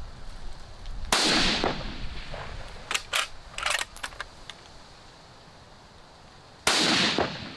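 Two rifle shots from a Sig Sauer Cross in 6.5 Creedmoor, about five and a half seconds apart, each with a rolling echo. Between them come a few fainter sharp clicks and knocks: the distant ring of a bullet striking a steel target, then the bolt being worked.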